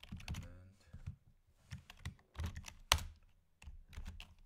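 Typing on a computer keyboard: irregular keystrokes, with one sharper, louder key strike about three seconds in.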